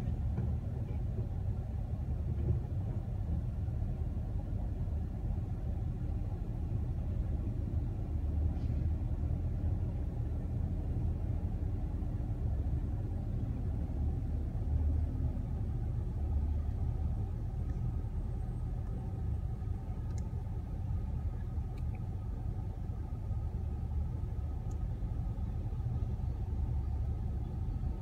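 Low, steady diesel engine rumble from a McNeilus rear-loader garbage truck on a Mack chassis as it works and drives along the street, heard through the windshield of a car. A few faint clicks come in the second half.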